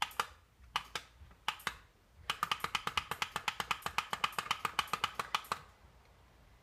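Sharp plastic clicks, three pairs like a button pressed and released, then a rapid even run of about eight clicks a second lasting about three seconds before stopping.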